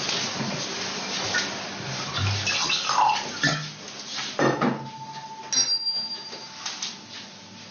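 A rushing hiss that fades about three and a half seconds in. Then a wine glass is handled on a kitchen table, clinking once and ringing with a short clear tone.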